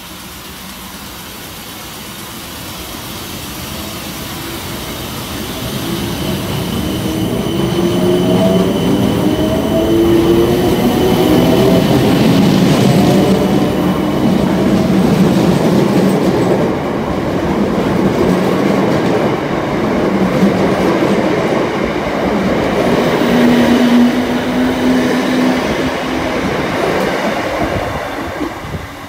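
South Western Railway Class 455 electric multiple unit pulling away and accelerating past: its traction motors whine in rising steps of pitch over the rumble of wheels on rail. The sound builds to a loud pass and fades near the end as the train draws away.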